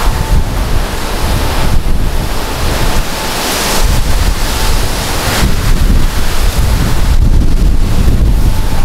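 Wind buffeting the microphone: a loud, gusty rumble that swells and eases every second or two.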